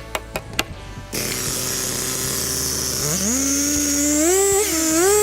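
A few sharp knocks, then a power tool starts: a hiss comes in abruptly, and its motor spins up to a steady whine whose pitch dips and recovers several times, as if it is loaded and eased off.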